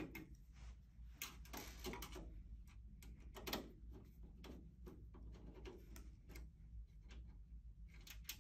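Screwdriver backing out the lid screws on the rear of a metal desktop DVR case: faint scattered clicks and scrapes of the screwdriver tip and screws against the metal case.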